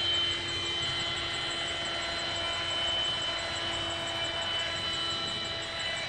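Handheld vacuum running with a steady whine as it sucks honey bees out of the hive into its sample jar. At the very end it is switched off and the whine falls in pitch as the motor winds down.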